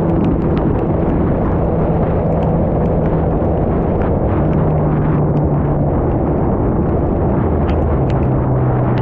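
Superbike engine running at steady cruising speed under heavy wind rush on the camera microphone; the engine note drops lower near the end as the bike slows.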